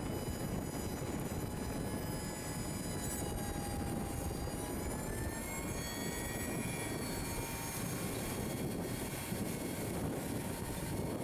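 Tractor pulling a CrustBuster 60-foot central fill no-till drill through crop stubble: a steady mechanical rumble with a high whine that dips in pitch about four seconds in and climbs back a couple of seconds later.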